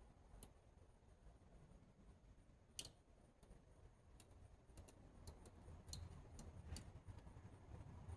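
Faint, scattered sharp clicks and snips: the leads of small through-hole LEDs being cut shorter with wire cutters and the parts handled. The loudest snip comes about three seconds in, and more follow in the second half.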